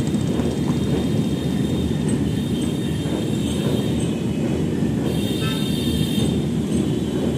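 A train crossing the steel railway bridge overhead, heard from underneath as a steady heavy rumble. A brief higher-pitched metallic whine comes in about five seconds in and lasts about a second.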